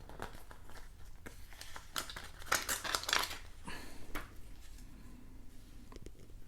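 Handling of a plastic disc case and loose disc: scattered light clicks and scrapes, busiest from about two to three seconds in.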